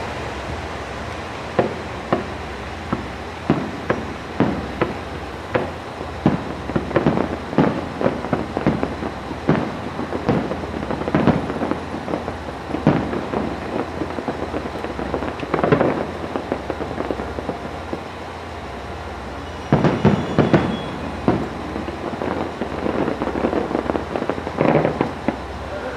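Aerial fireworks shells bursting: a steady run of irregular sharp bangs, with a dense cluster of them about twenty seconds in.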